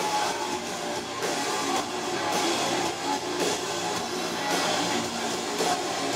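Live heavy metal music from a band on stage: electric guitars and a drum kit playing steadily, with no clear singing.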